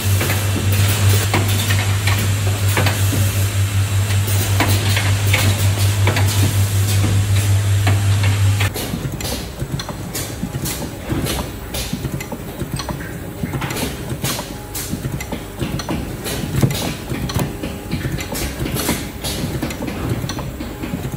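Factory machinery: a loud steady low hum from an automated assembly machine, which stops abruptly about nine seconds in. After that come irregular clicks and knocks from a testing rig working a row of small plastic hydraulic dampers.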